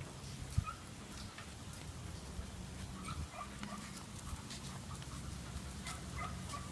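A group of dogs out on a walk: scattered light clicks and taps, with a few faint short chirps over a steady low hum.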